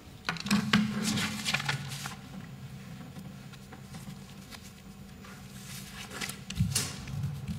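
Paper rustling and handling knocks picked up by a podium microphone, in clusters about a second in and again near the end, over a low steady hum.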